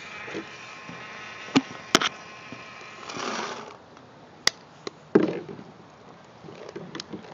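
A plastic paintball pod being handled on a table: about six sharp clicks and knocks, with a short rush of noise a little past the middle.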